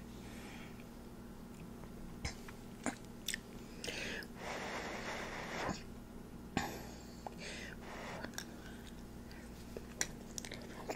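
Close-miked eating: a person taking a forkful of biryani and butter chicken, with faint chewing, lip and mouth sounds and small clicks of the fork. There is a breathy rush of air about four seconds in, lasting a second and a half, and a shorter one a couple of seconds later.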